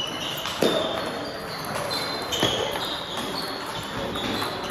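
Table tennis balls clicking off paddles and table tops, a quick scatter of hits from this and neighbouring tables, with two louder hits about half a second in and about two and a half seconds in.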